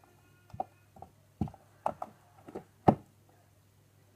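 Sticky homemade slime being stirred in a bowl, giving about six separate wet clicks and knocks over a few seconds.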